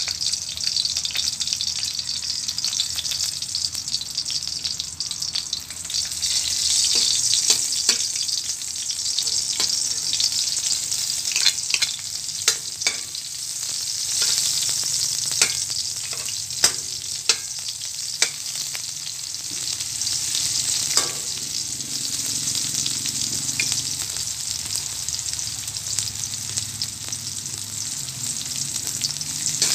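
Garlic cloves sizzling steadily in hot cooking oil in a wok, with onion later added to the frying. In the middle stretch a spoon clicks and scrapes sharply against the wok several times as the onion goes in and is stirred.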